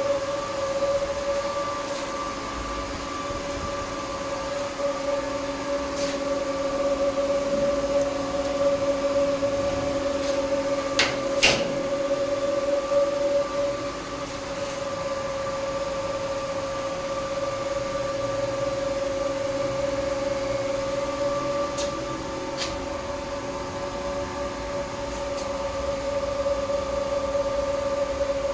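Server equipment cooling fans running with a steady hiss and a constant whine. A few sharp clicks, the loudest about 11 seconds in.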